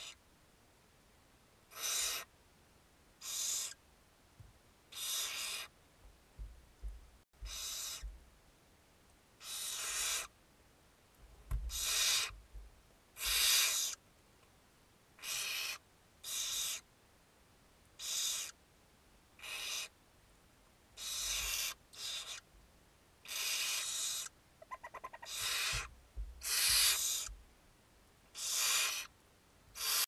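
Barn owl nestlings' hissing begging calls: harsh, breathy hisses of half a second to a second each, repeated about every one to two seconds. A few soft low thumps come in between.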